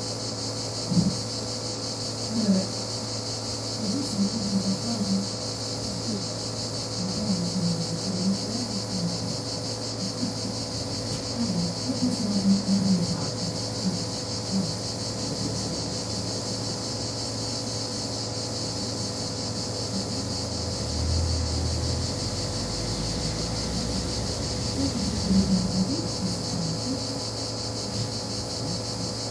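Steady chorus of insects, a constant shrill hiss that does not let up.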